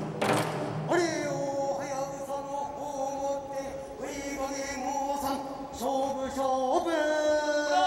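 Nanbu kagura accompaniment: a male voice chanting in long, drawn-out notes that slide between pitches, with a sharp percussion strike just after the start.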